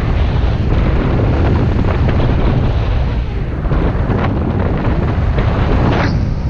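Airflow from paraglider flight buffeting the microphone: a loud, steady, deep rush, with a stronger gust about six seconds in.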